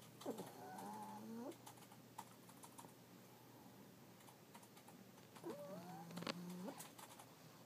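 Sleeping pug snoring: two drawn-out snores about five seconds apart, each with a low buzz under a wavering whistle. Faint keyboard clicks between them.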